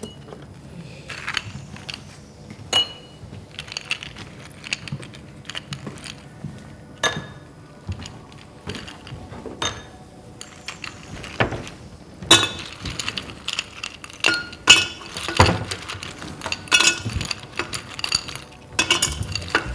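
Ice cubes dropped into drinking glasses, clinking against the glass in scattered single clicks that come more often in the second half.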